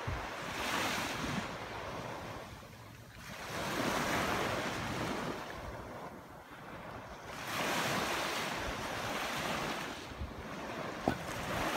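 Surf washing onto a beach, swelling and fading about every three to four seconds, with wind on the microphone. A short tap sounds near the end.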